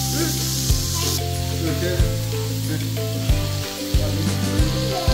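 Sliced meat sizzling on a tabletop grill pan, the hiss strongest in the first second, under background music with a slow steady beat and sustained bass notes.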